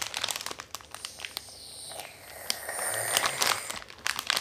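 Plastic Mentos candy bag crinkling as it is turned over in the hands: quick crackles, with a longer, louder rustle a little past halfway.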